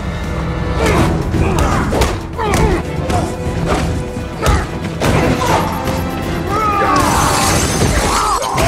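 Action-film fight soundtrack: music under a run of hard punches and body thuds, then a crash with shattering debris about seven seconds in.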